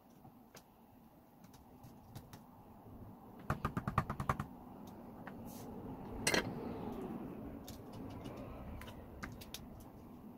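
Faint workbench handling noises from a bare DeWalt 18V battery cell pack and tools: a quick rattling run of about a dozen clicks around four seconds in, then a single sharp knock just past six seconds, with scattered light taps.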